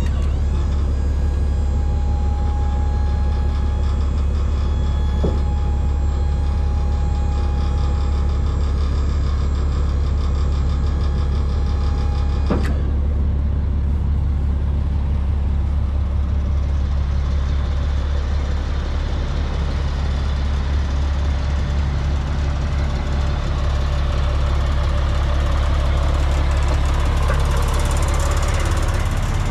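1999 GMC C6500 medium-duty truck's engine idling steadily with a low hum, with a sharp click partway through.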